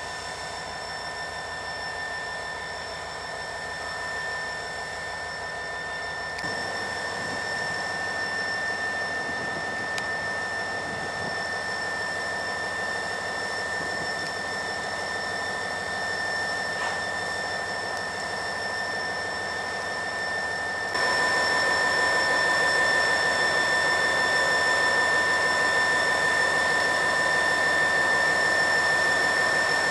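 Idling EMD SD40-2 diesel locomotive giving a steady, high-pitched whine with several fixed tones over a low hiss, getting louder about two-thirds of the way through. The horn is not sounded.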